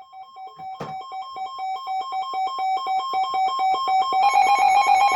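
Electronic weather-alert tone: rapid two-pitched beeping, several beeps a second, growing steadily louder and stepping up sharply about four seconds in. A single click sounds about a second in.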